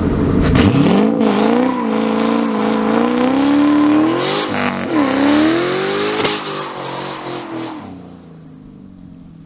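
Turbocharged Ford Mustang GT's 4.6-litre three-valve V8 revving hard under load: it climbs and holds high, drops briefly about halfway through, then climbs again. It fades away near the end.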